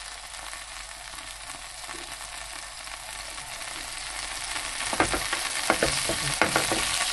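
Beef steak sizzling in hot oil in a frying pan, a steady hiss that grows louder over the second half, with a few sharp knocks about five seconds in.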